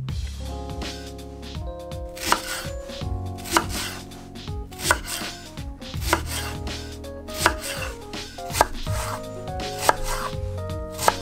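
A kitchen knife slicing a Japanese long onion (negi) on a bamboo cutting board, one cut at a time: about eight sharp knocks of the blade meeting the board, evenly spaced a little over a second apart. Soft background music plays underneath.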